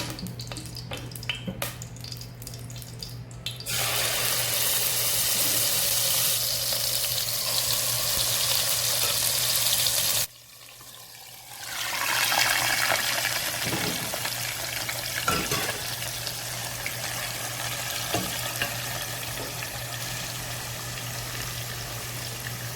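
Marinated chicken pieces going into hot olive oil in a frying pan. A few utensil knocks, then a steady sizzling hiss from about four seconds in. The sizzle drops away briefly near the middle and comes back, with occasional knocks from the spoon, over a steady low hum.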